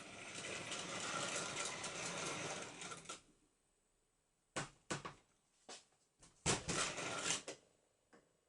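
Model railway locomotive running along the track with its trucks, a steady mechanical whirr and rattle that cuts off abruptly about three seconds in as the train stops. Then a few separate clicks and knocks.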